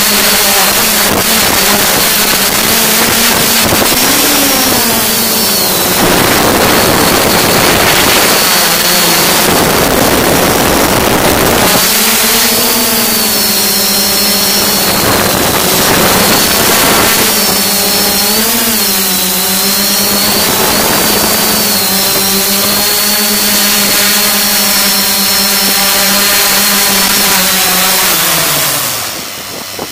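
S550 hexacopter's electric motors and propellers running with a steady hum and a thin high whine, picked up at close range by the camera on the craft. Gusts of wind rush over the microphone in places, and the pitch wavers as the craft manoeuvres. Near the end the hum drops in pitch and fades as the motors slow.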